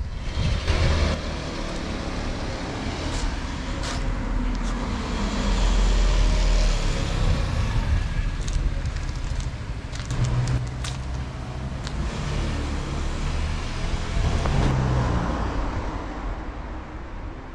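Road traffic on a street: cars passing by in a continuous rumble that swells loudest about six seconds in, with a few sharp clicks along the way.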